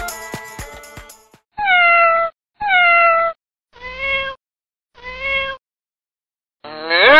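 A cat meowing four times, each meow about half a second long and falling slightly in pitch, after music that stops about a second in. A louder animal call begins just before the end.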